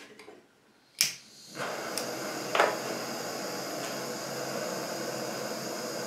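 Gas cartridge blowtorch being lit: a sharp click about a second in, then the steady hiss of the burning flame, with one brief louder burst just after it catches.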